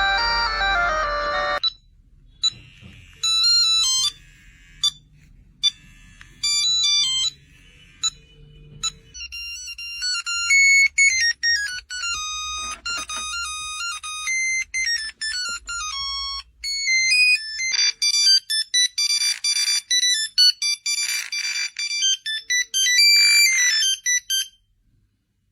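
Old 1990s-style mobile phone ringtones playing one after another: a fuller tune ends early, then simple beeping melodies of single tones jumping up and down in pitch, a sparse one first and then a faster, busier one that stops just before the end.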